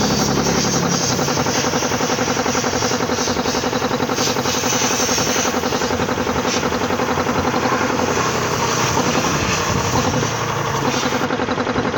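Reciprocating air compressor pump running steadily, with a rapid, even pulsing beat.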